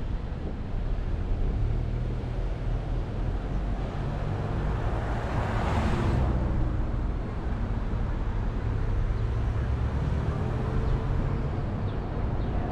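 Car driving on a city road: a steady low road rumble, with a louder whoosh that swells and fades about six seconds in.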